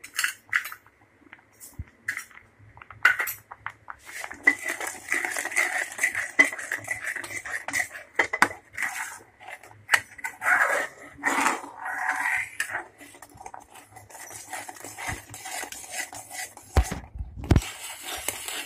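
A steel spoon scraping and clinking against a metal pan, stirring milk as it thickens into rabri. There are a few dull knocks near the end.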